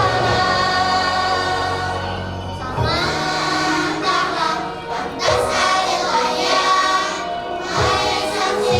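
A group of children singing an Arabic nasheed together, holding long sung notes.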